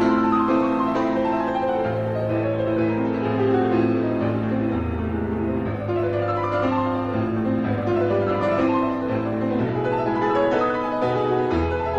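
Piano music from the film's score: runs of notes falling in pitch over held low notes through the first half, then rising again in the second half.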